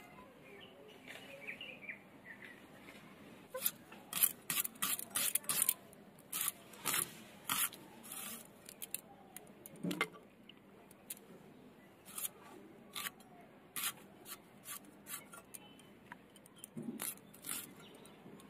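Red onion being cut on a boti, the upright curved blade fixed to a wooden base: short, crisp cutting strokes in irregular clusters, a few a second, starting a few seconds in.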